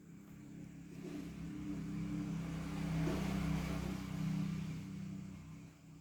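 A motor vehicle passing by, its sound swelling from about a second in to a peak midway and fading away near the end.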